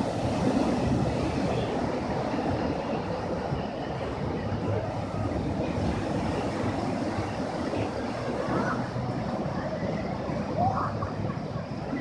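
Surf breaking and washing up on a sandy beach, a steady rush, with wind buffeting the microphone.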